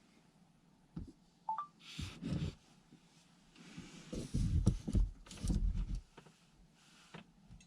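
Indoor handling noises: a click, a brief two-note electronic beep, then a run of rustling and dull thumps and knocks, with one last knock near the end.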